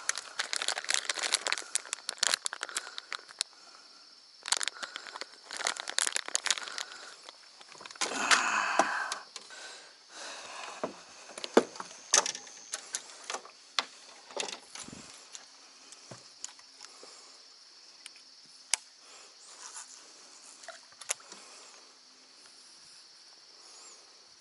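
Crinkling and rustling of a plastic soft-lure bag with clicks and knocks of fishing tackle being handled in a small boat. The handling is busiest in the first ten seconds, then thins out to scattered clicks over a steady high hiss.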